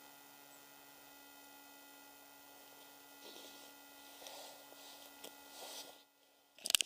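A steady electrical hum, with the faint crackle of a small, slowly catching campfire from about three seconds in. There is a loud sharp click near the end.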